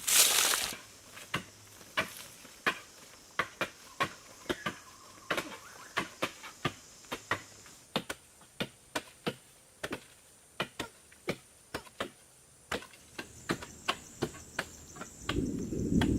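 A long series of sharp knocks or chopping strikes at an irregular pace, about two or three a second, over a faint steady high insect-like buzz. A loud rustling burst comes at the start, and a low rumbling noise sets in near the end.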